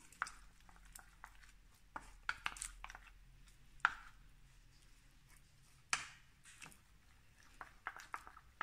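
Metal spoon clinking and scraping against a glass bowl while vanilla pudding powder is stirred into juice to dissolve the lumps: a string of faint, sharp, separate clicks.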